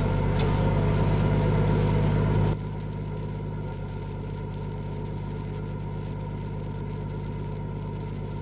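Straight-piped Nissan Patrol TD42 4.2-litre straight-six diesel running steadily. About two and a half seconds in, the level drops suddenly and the engine carries on, quieter, at an even pace.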